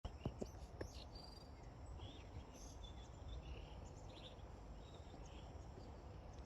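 Faint outdoor background: a steady low rumble with scattered short insect chirps, and a couple of sharp clicks in the first second.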